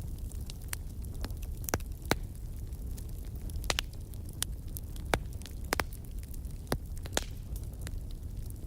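Wood fire crackling in a fireplace: sharp, irregular pops and snaps, a few of them louder, over a steady low rumble of burning.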